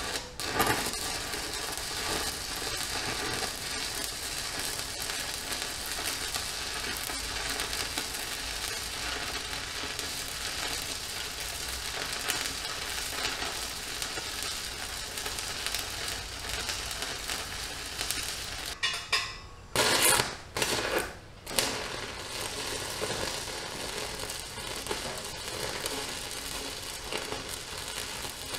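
Electric arc welding on steel: the arc runs with a steady crackling sizzle. About two-thirds of the way through it stops, is struck again in a few short bursts, and then runs steadily again.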